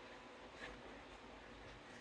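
Near silence, with one faint click about two-thirds of a second in: a lock pick nudging the levers inside a Chubb Battleship lever padlock.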